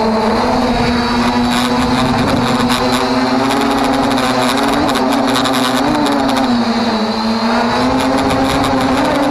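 Quadcopter drone's motors and propellers whining steadily close to the microphone, the pitch wavering slightly as the drone lifts off from the grass and climbs.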